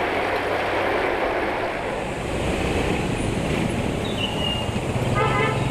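Steady outdoor road-traffic noise, with a low engine hum coming in near the end.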